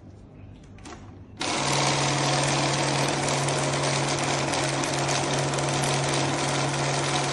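PRT-110 banknote counting machine starting on its own about a second and a half in and counting Turkish lira notes at its 1200-notes-a-minute speed: a steady motor hum under a rapid, dense flutter of notes being fed through.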